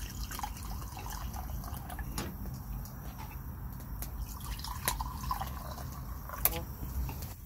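A clear drink poured from a bottle into plastic wine glasses, one glass after the other, trickling and splashing as the glasses fill, with small clicks and one sharp tap near the end.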